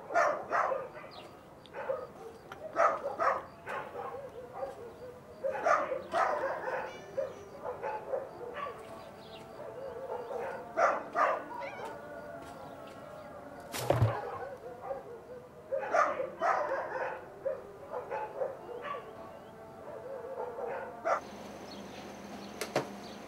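Dogs barking in repeated bursts, several at a time, with one sharp bang about two-thirds of the way through. Near the end the barking stops, leaving a steady low hum.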